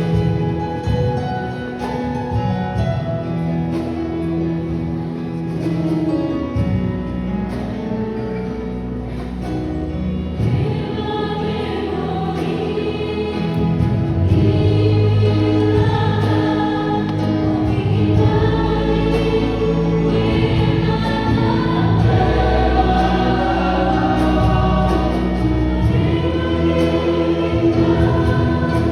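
A choir singing in parts, a gospel-style song, with the music growing fuller and louder about halfway through.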